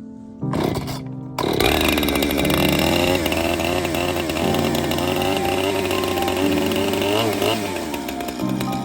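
Two-stroke chainsaw running and revving. It starts in a short burst, then runs at high speed from about a second and a half in, its pitch wavering up and down as it cuts.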